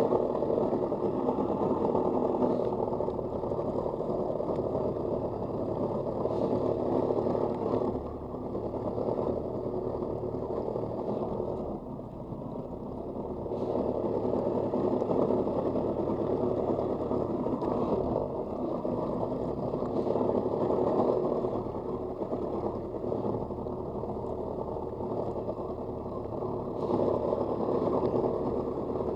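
Stand-up jet ski's engine running under way across open water, its loudness swelling and easing every several seconds. It is heard muffled, with little above the mid range.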